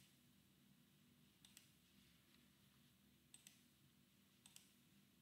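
Near silence with faint computer mouse clicks: three pairs of quick clicks, about a second and a half in, near the middle, and near the end.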